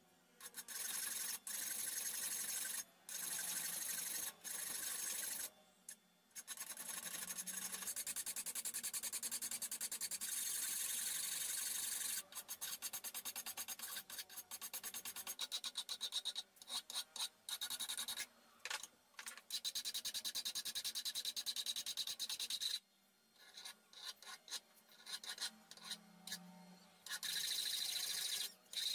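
A hand file rasping back and forth across a steel hammer head in runs of rapid strokes with short pauses between them. The strokes come choppier in the middle stretch.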